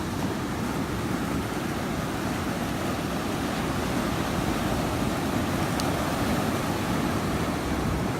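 Steady noise of ocean surf and wind at the beach, heaviest in the low end, with wind buffeting the microphone.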